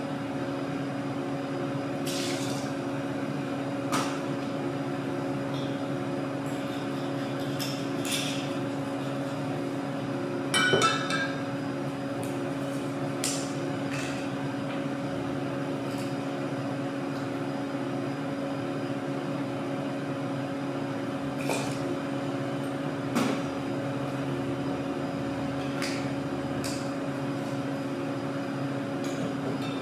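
Bar glassware and tools clinking and knocking now and then, with a cluster of ringing clinks about eleven seconds in, over a steady electrical hum.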